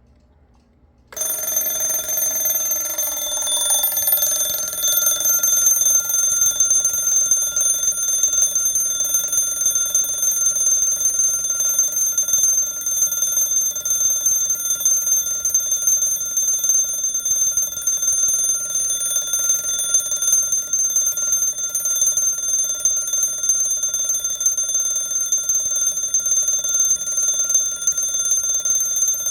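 The alarm bell of an 1890 Junghans B32 mechanical alarm clock going off: it starts suddenly about a second in and keeps ringing steadily without a break.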